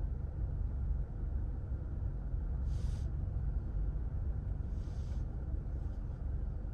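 Steady low rumble of a car driving along a road, with two brief hisses about three and five seconds in.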